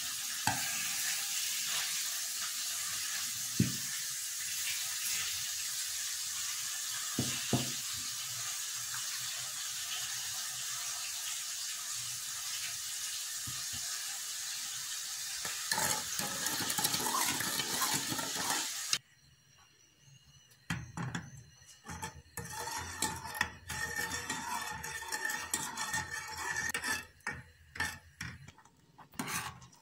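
A steady hiss with a few sharp clinks of a metal spoon against a steel bowl, then, after it stops abruptly about two-thirds in, a spoon stirring milk and corn starch in a metal saucepan, with irregular scraping and knocking against the pan.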